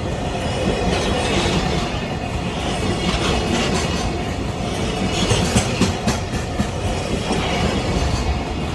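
Freight train wagons rolling past over a level crossing, wheels clattering steadily over the rail joints.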